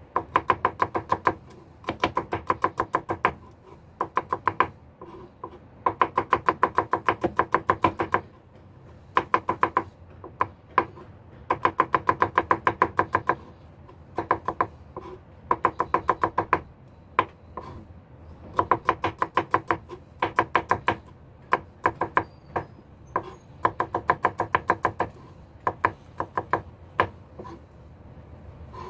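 Kitchen knife chopping garlic fast on a cutting board: quick runs of sharp knocks, about seven a second, broken by short pauses.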